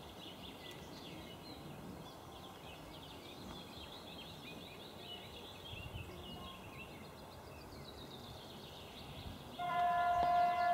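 Birds chirping and singing; about nine and a half seconds in, the horn of the approaching EU07 electric locomotive starts sounding, one steady held tone much louder than the birdsong.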